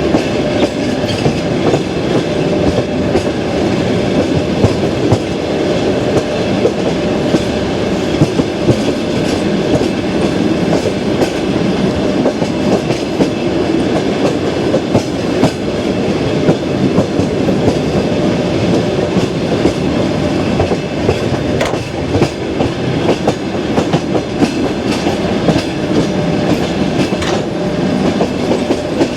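Clickety-clack of a passenger express train's wheels running over the rail joints of jointed track, heard from a carriage window: a steady rumble and rattle with frequent sharp knocks.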